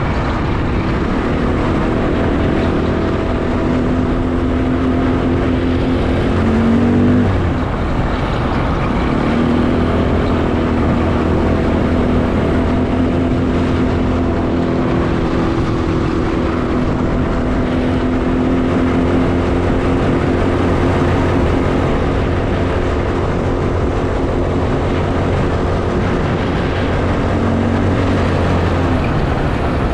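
Car engine running while driving, with a rough noise of tyres on the road beneath it. The engine pitch climbs about six seconds in, drops suddenly about a second later, then holds steady.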